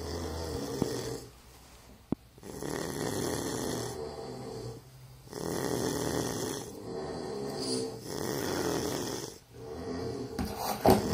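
A sleeping pet snoring in a slow, even rhythm: about five long snores of roughly two seconds each, with short pauses between them. There is a single sharp click about two seconds in.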